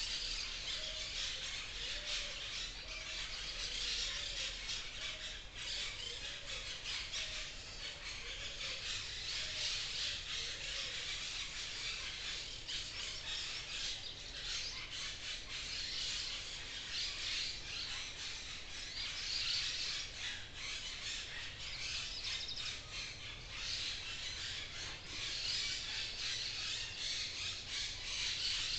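Forest birds chirping and calling in a dense, unbroken chorus, with a low, repeated call in the first ten seconds or so.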